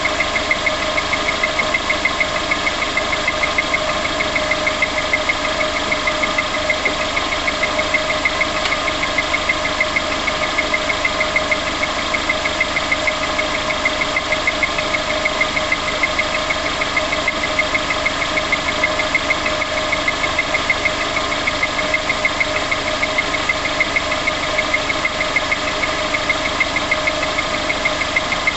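Car engine idling with a steady, rapid tapping, about four taps a second: the tapping noise that appears on start-up.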